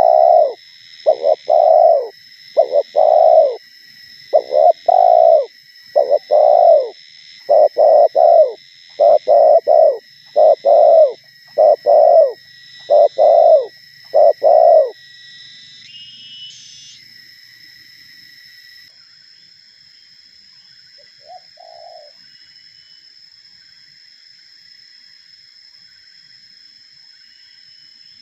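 Spotted dove cooing close by: a run of about twenty low coos, many in pairs, over the first fifteen seconds, then one faint coo later on. A steady high-pitched whine runs underneath.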